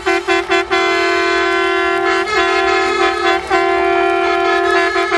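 A horn sounding one pitched note, first in a few quick toots and then in long held blasts with short breaks, with quick toots again near the end.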